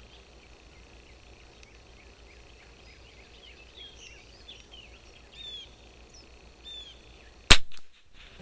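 A single shot from a Kimber 82G .22 rimfire target rifle firing Eley Club ammunition, sharp and loud, about a second before the end. Birds chirp faintly before it.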